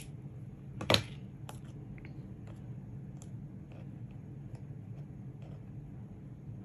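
Two sharp snips of scissors cutting the tails of a gold eyelash-trim bow, one at the start and a louder one about a second in, followed by faint light clicks of paper being handled over a steady low hum.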